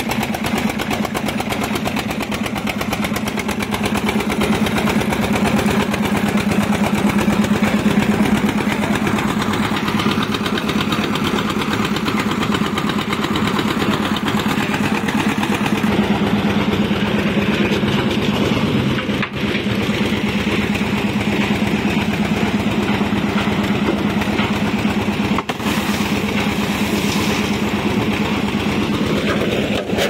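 Portable concrete mixer running: its engine drones steadily as it turns the drum, dropping briefly twice.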